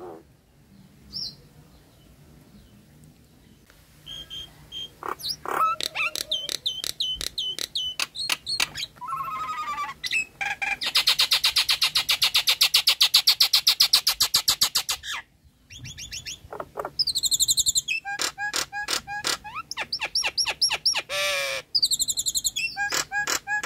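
Nias hill myna (jalak nias) calling: loud whistles and sharp clicking notes, with a fast rattling run of repeated notes in the middle after a quiet first few seconds.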